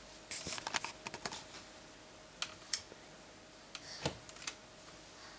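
Light clicks and knocks from a toddler's plastic-tube jungle gym as she climbs on it: a quick run of clicks in the first second, a few single clicks, and a louder knock about four seconds in.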